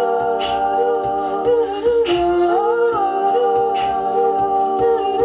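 Women's a cappella group humming sustained wordless chords in close harmony. The chord shifts a few times, with a few short hissy accents.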